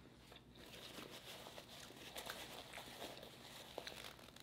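Faint closed-mouth chewing with a few soft clicks, barely above near silence.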